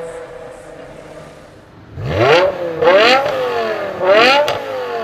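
BMW M5 E60's S85 5.0-litre naturally aspirated V10 idling, then, about two seconds in, revved in three quick throttle blips, each climbing in pitch and falling back.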